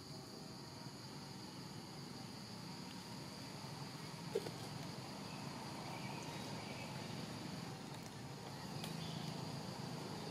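Steady high-pitched drone of a forest insect chorus, with one short, sharp blip about four seconds in.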